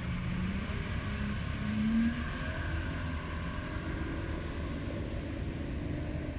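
Speedboat outboard motors running as the boats pull away, one engine rising in pitch as it speeds up about two seconds in, over a steady low rumble.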